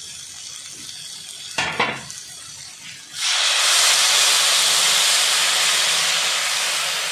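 Water poured into a hot kadai of spiced, oil-fried mango and drumstick pieces, setting off a loud sizzling hiss about three seconds in that slowly eases off. Before it, a quieter stretch with a brief knock about two seconds in.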